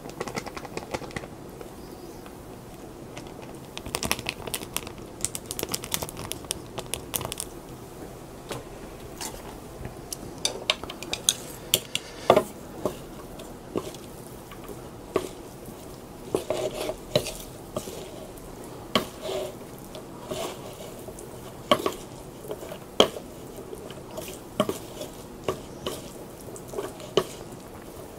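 Wooden chopsticks clicking and scraping against a bowl while stirring sauced instant yakisoba noodles, in irregular taps throughout.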